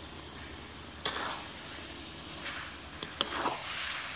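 A spatula scraping through thick, drying shrimp paste and against the metal of a wok as it is stirred, in a few sweeping strokes. It knocks sharply on the wok about a second in and again near the three-second mark.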